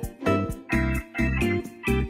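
Background music: an instrumental tune of short, evenly spaced plucked notes over a bass line, about three to four notes a second.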